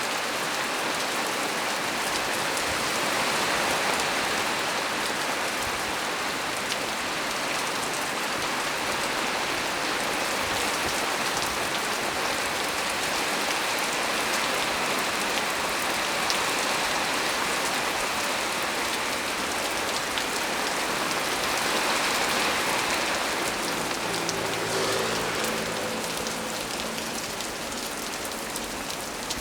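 Heavy rain falling steadily on a small tree's leaves, a dense, even hiss. Near the end a faint low hum comes in briefly under the rain.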